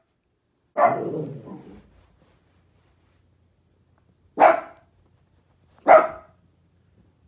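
Miniature dachshund puppy barking: one bark about a second in, then two more sharp barks about a second and a half apart later on.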